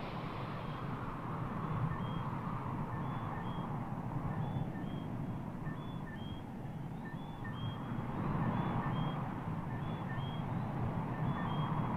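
Wind blowing across open grassland and buffeting the microphone in gusts, with a small high two-note chirp repeated over and over.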